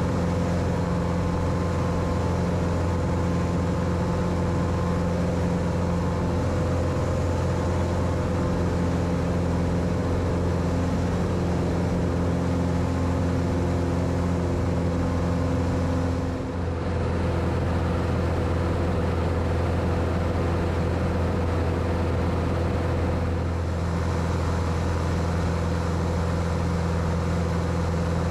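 Cessna 182's piston engine and propeller droning steadily, heard from inside the cockpit. The drone dips briefly about two-thirds of the way through.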